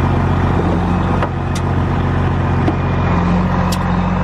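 Pickup truck engine idling steadily, with a few light clicks over it.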